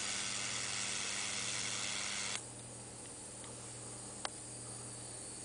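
Small solid-state Tesla coil lighting a homemade xenon plasma ball: a steady hiss over a low electrical hum. The hiss drops sharply about two and a half seconds in while the hum carries on, and a single sharp click comes about four seconds in.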